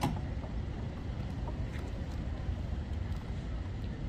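Steady low outdoor background rumble, with a few faint ticks.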